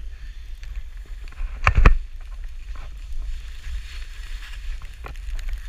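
Skis sliding over snow with a steady wind rumble on the pole-mounted camera's microphone, and one sharp knock a little under two seconds in.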